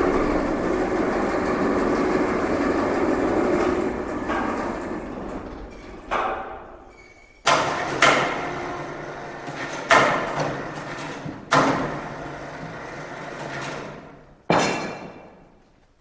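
A steady mechanical rumble fades over the first several seconds. Then six loud bangs, one to two seconds apart, each echo and die away through the large workshop hall.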